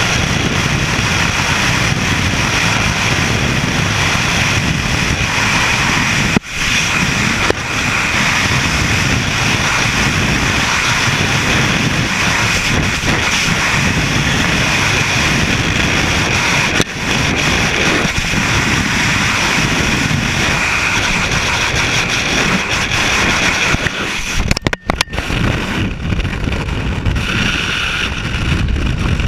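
Freefall wind rushing hard over the camera microphone as a steady loud buffeting, with brief dropouts. Near the end it breaks up and then eases a little as the parachute deploys.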